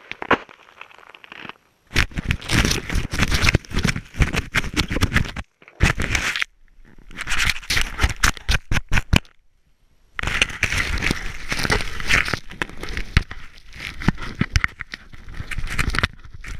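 Skis scraping and crackling over snow, heard through a helmet-mounted action camera, in rough noisy bursts that cut off abruptly twice.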